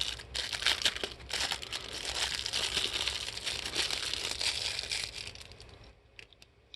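Plastic toy packaging crinkling and rustling as it is pulled open, dying away about five seconds in, with a few faint clicks after.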